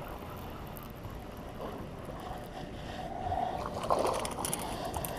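Steady wind and water noise on an open boat, growing louder about three seconds in, with a brief louder burst near four seconds and a few light clicks near the end.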